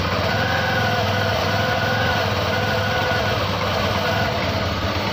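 TVS Jupiter BS6 scooter's single-cylinder engine idling at the exhaust, heard close up, with a slight unevenness in its note. This is the low-speed misfire the scooter is being checked for.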